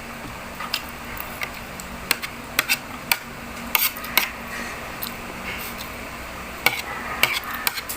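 Cutlery clinking and tapping against a plate at irregular intervals, as someone eats, over a faint steady hum.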